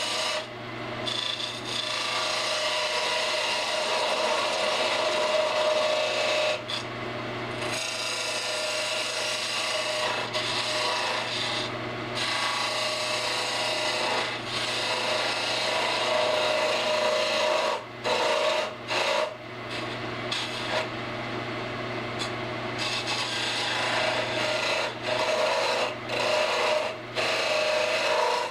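Wood lathe running with a steady motor hum while a turning tool cuts and scrapes the spinning wood of a candlestick blank. The cutting sound breaks off briefly several times, more often near the end, as the tool is lifted away.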